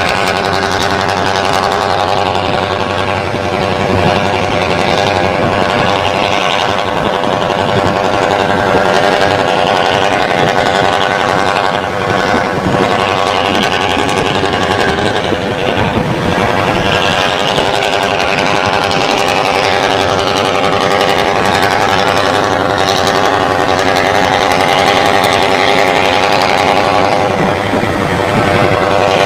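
Alfa Romeo FNM D-11000 truck's six-cylinder diesel engine roaring loudly and steadily, working under load as the laden truck runs along the highway.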